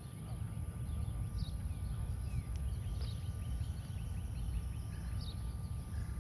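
Outdoor ambience: a steady low rumble with faint, scattered bird chirps and a thin steady tone, with no speech.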